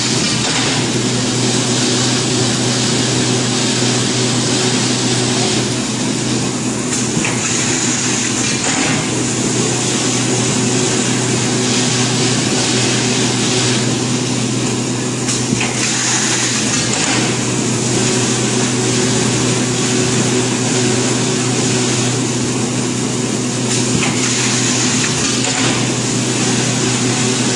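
EPE foam laminating machine running: a loud, even machine hum with a constant hiss over it.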